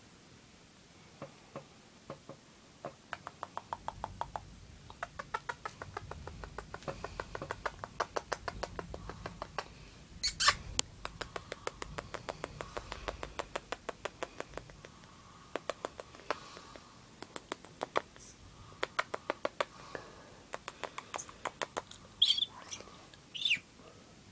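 A Nanday conure kissing at close range: long runs of rapid soft clicks and smacks between the bird's beak and a person's lips, with one louder sharp sound about ten seconds in. A few short chirps from the conure come near the end.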